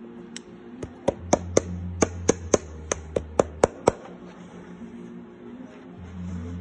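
A shoemaker's hammer striking about a dozen quick, sharp blows, roughly three a second, then stopping, as it tacks a leather insole onto a wooden shoe last.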